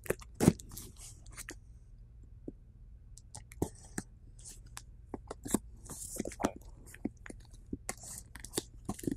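A knife cutting through the packing tape and cardboard of a shipping box, giving scattered crackles, snaps and short scrapes. The sharpest snap comes about half a second in.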